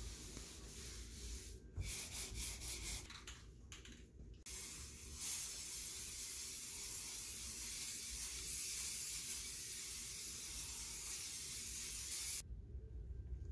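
A few seconds of hand rubbing strokes over a sanded car door panel, then an aerosol can of primer spraying in a steady hiss for about eight seconds, cutting off suddenly near the end.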